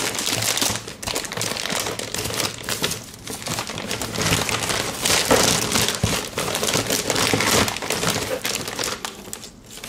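Crinkly packaging rustling and crackling continuously as the power supply's bundled modular cables are unwrapped and handled.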